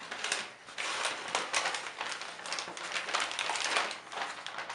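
Metallic gift-wrap paper bag crinkling and rustling as a hand pushes a cardstock base down into its bottom.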